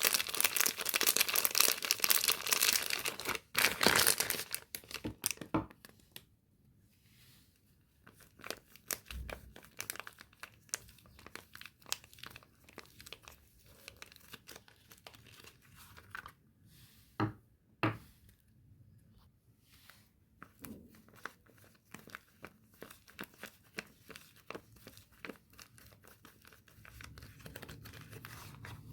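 Soap packaging being torn and crinkled open. The first few seconds are loud and dense, then the sound thins to quiet rustling and scattered clicks, with two sharp taps a little past the middle.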